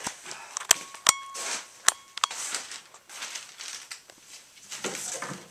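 Four sharp metallic clanks in the first couple of seconds, one ringing briefly, from a plumber's tools and metal parts at a toilet pump basin. Softer handling noise follows.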